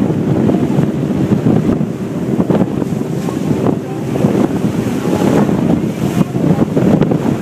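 Wind buffeting the microphone aboard a fishing boat under way at sea, gusting unevenly. The boat's engine runs steadily beneath it, with the rush of waves against the hull.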